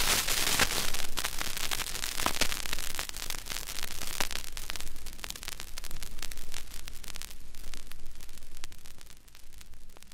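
Crackle, clicks and hiss of a stylus riding a vinyl LP on a Radiola portable record player, the surface noise of the silent groove at the record's end. It grows fainter near the end.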